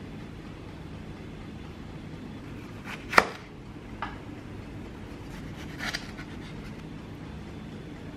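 Kitchen knife slicing a tomato on a wooden cutting board: one sharp knock about three seconds in, a lighter one a second later, and a short run of knocks near the end, over a steady low hum.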